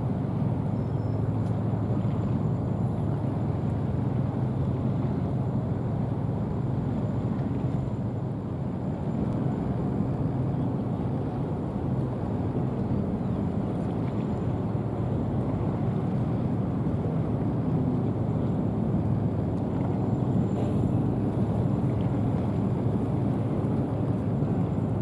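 Boeing 929 Jetfoil's gas-turbine waterjet propulsion running steadily, a constant low hum with a faint thin high whine.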